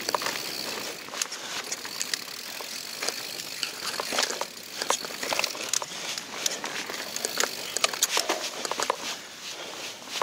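Mountain bike rolling fast down a dirt singletrack: tyres crunching over dirt, leaves and twigs, with frequent irregular clicks and rattles from the bike jolting over roots and bumps.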